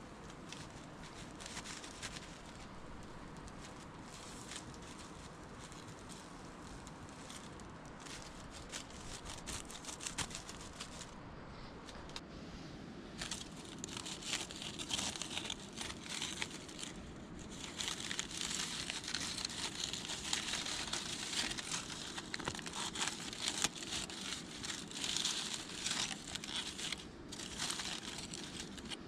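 Crinkly wrapping being crumpled and handled, with dense crackling rustles that grow busier and louder from about halfway through.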